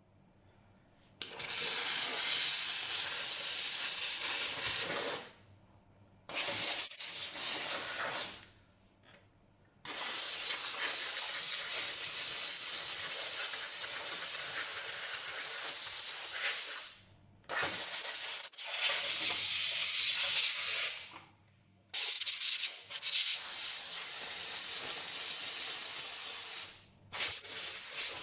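Kärcher SC 1030 steam cleaner jetting steam: a loud hiss in about six bursts of two to seven seconds each, with short pauses between as the trigger is released.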